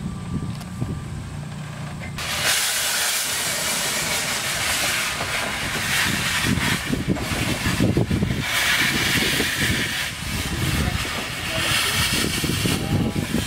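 Steam hissing hard from the cylinders of a replica 1848 2-2-2 steam locomotive as it moves off slowly, with the cylinder drain cocks open. The hiss starts suddenly about two seconds in and swells and eases over a low rumble from the engine and wheels.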